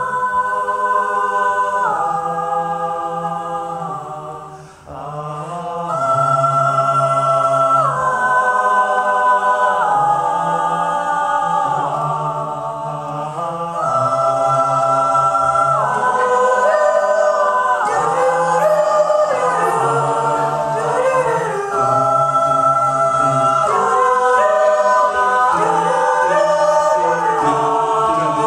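Mixed a cappella vocal group singing held chords in close harmony over a low sung bass line, the chord changing about every two seconds. The sound dips briefly about five seconds in.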